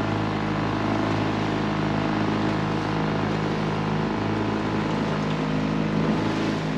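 Small tiller-steered outboard motor running steadily at cruising speed, driving an aluminium dinghy, with a rush of water and wind over it.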